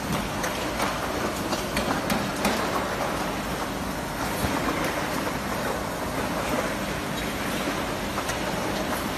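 Automatic soldering robot and its production-line machinery running: a steady mechanical whir and hum with scattered light clicks.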